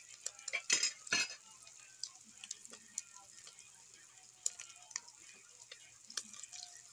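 Pork cubes frying in rendered fat in an aluminium pot: a steady sizzle with scattered pops and crackles, and a few louder clicks about a second in. The pork is being browned.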